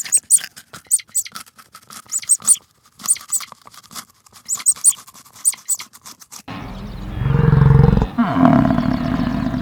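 Rapid sharp clicks and taps for about six seconds, then a loud, low, drawn-out call from a large farm animal that starts about two-thirds of the way in and dips in pitch partway through.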